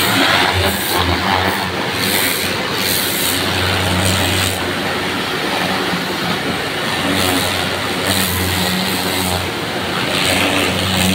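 High-pressure water spray hissing from a washer lance against a wall and windows, over the steady drone of the engine driving the pump.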